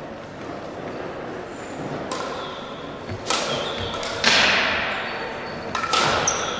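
Crossminton rackets striking the speeder in a rally, about four sharp hits a second or so apart, each ringing on in the echo of a large sports hall; the loudest comes about halfway through.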